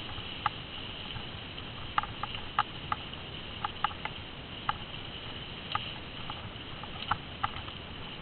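Bicycle rolling over a bumpy dirt trail: irregular sharp clicks and rattles, about a dozen, over a steady high-pitched hiss.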